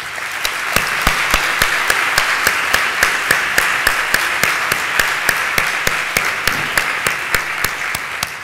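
Audience applauding in a large hall, with one pair of hands close by clapping distinctly about four times a second over the general clapping.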